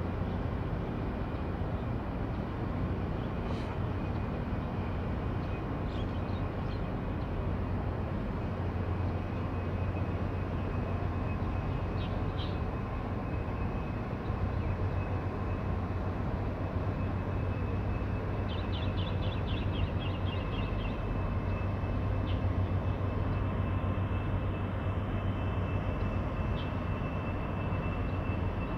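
Steady low drone of the WAN HAI 286 container ship's engine as it passes close by, with a few brief high chirps and a quick run of ticks in the middle.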